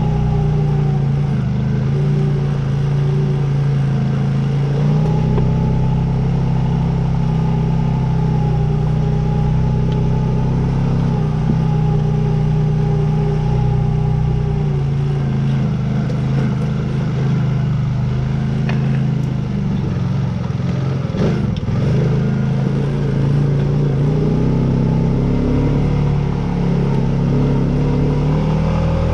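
2021 Honda Rancher 420 ATV's single-cylinder engine running steadily under load while climbing a steep trail, its pitch stepping slightly up and down. A couple of sharp knocks about two-thirds of the way through.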